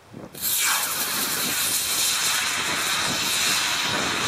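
Home-made model rocket motor igniting about half a second in and burning with a loud, steady hiss as the two-stage rocket lifts off.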